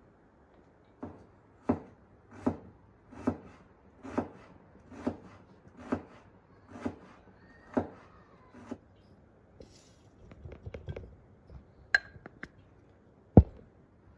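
Kitchen knife chopping on a wooden cutting board: about ten firm, evenly spaced strokes, just under one a second. Then a few lighter clicks and one loud knock near the end.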